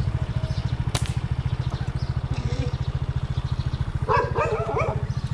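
An engine idling with an even, fast low pulse. A single sharp click comes about a second in, and a short whine near the end.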